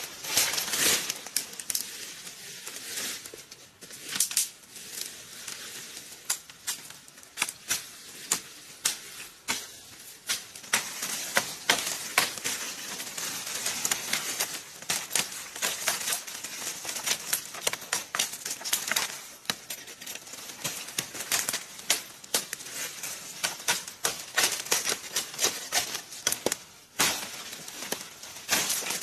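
Digging a narrow post hole by jabbing a long pole into stony soil: rapid, irregular knocks and crunches of earth and pebbles with each stab.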